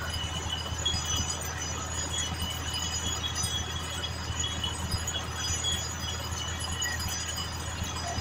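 Truck-mounted borewell drilling rig running steadily as it drills a borewell: a continuous low drone with short, high metallic ringing tones scattered over it.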